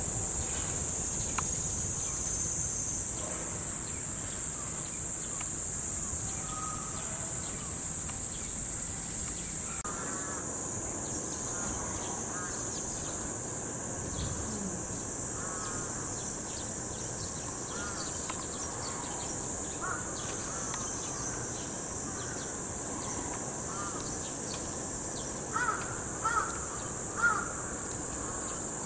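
Steady high-pitched drone of a summer cicada chorus. Short bird chirps join it after about ten seconds, with a few louder ones near the end.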